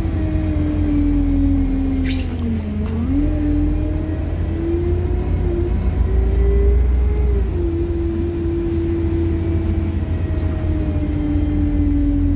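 Interior sound of a single-deck bus on the move: a steady low rumble with a drivetrain whine that dips and rises in pitch as the bus slows and picks up speed. A brief hiss comes about two seconds in.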